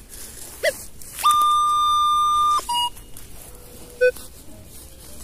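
Minelab Vanquish 540 metal detector sounding one steady high beep for about a second and a half, its target tone over a buried metal object, then a very short blip about four seconds in.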